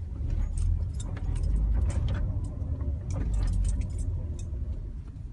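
A car's front suspension clicking and knocking irregularly, a dozen or more sharp clicks over a low steady rumble, fading out toward the end.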